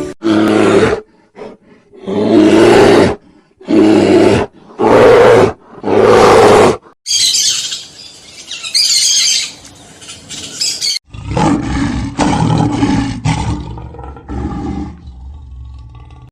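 Lion roaring: about five loud roars one after another. A higher-pitched fluttering call follows, and after a sudden cut about eleven seconds in comes a different, lower sound.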